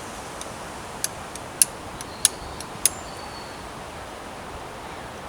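Flint and steel struck four times in quick succession to throw sparks onto char cloth: sharp metallic clicks, two of them with a brief ringing tone, over a steady background hiss.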